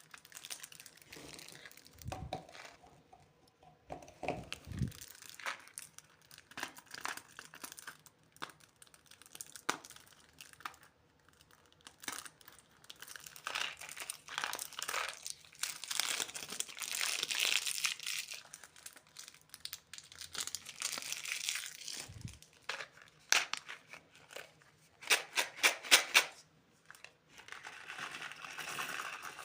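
Plastic candy wrappers being crinkled and torn open by hand, in irregular rustles that come and go, with a longer stretch in the middle and a quick run of sharp clicks near the end.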